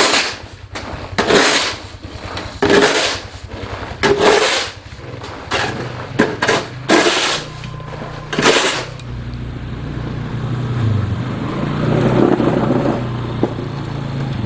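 A run of loud noisy strokes about a second and a half apart, seven in all. They stop about nine seconds in and give way to a steady engine hum.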